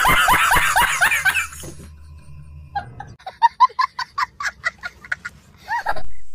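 A man laughing loudly in rapid, evenly paced bursts, then a small child giggling in quick, higher-pitched bursts. It cuts off abruptly near the end.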